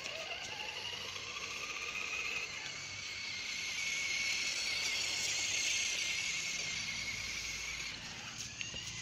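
Toy RC car's small electric motor whining, rising in pitch as it speeds up in the first second, then holding a steady high whine with a hiss.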